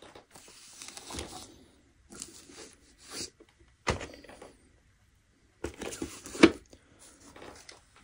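Rummaging in an open padded gear backpack: irregular rustling and scraping of equipment being handled, with a sharp click about four seconds in and a louder clunk about six and a half seconds in.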